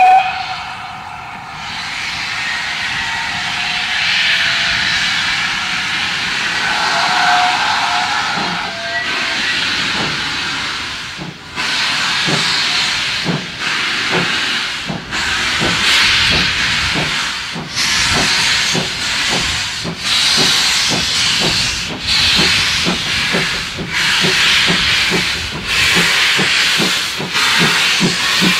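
GWR 9300 class 2-6-0 Mogul steam locomotive No. 9351 pulling away from a stand: a short whistle blast at the start, then a steady hiss of steam from its open cylinder drain cocks. From about ten seconds in, slow exhaust chuffs come in, about one a second at first and gradually quickening as the engine gets under way.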